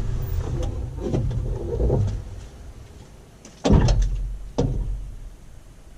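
Cat 320E excavator's diesel engine rumbling low and dying away, then two heavy thumps about a second apart near the middle: the cab door being opened and shut as the operator climbs out.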